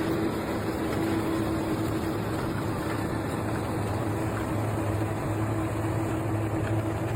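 Large engine running steadily at constant speed, a continuous low hum with a steady droning tone.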